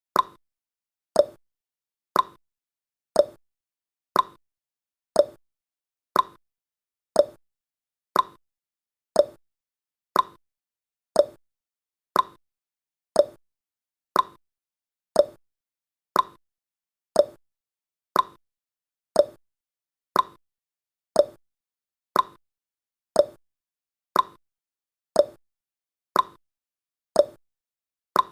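Countdown timer's ticking sound effect: one short, sharp clock-like tick each second, evenly spaced.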